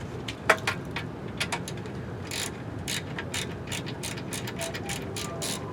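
Hand ratchet clicking in short, irregular runs as fasteners are undone.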